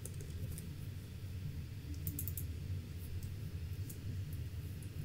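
A short run of about four quick keystrokes on a computer keyboard about two seconds in, with a few scattered clicks elsewhere, over a low steady hum.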